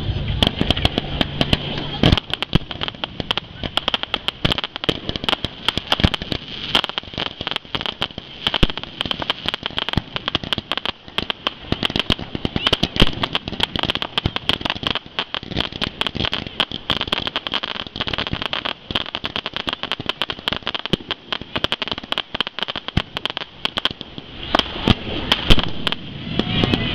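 Aerial fireworks display going off: a dense, unbroken run of sharp bangs and crackles, several a second, from shells and comets bursting overhead.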